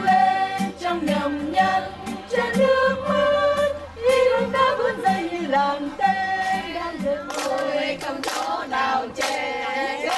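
A group of voices, mostly women, singing a song together. Rhythmic hand clapping joins in during the last few seconds.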